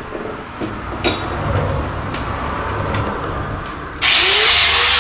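Light knocks and rubbing as a part is fitted by hand against the vehicle's body. About four seconds in, a power tool starts suddenly and loudly, with a hiss and a whine that rises in pitch.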